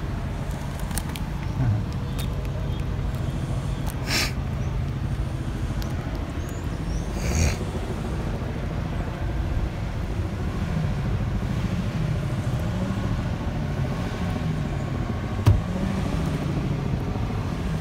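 Vehicle engine idling in a steady low hum, heard from inside the car's cabin, with short hissing noises about four seconds and seven and a half seconds in.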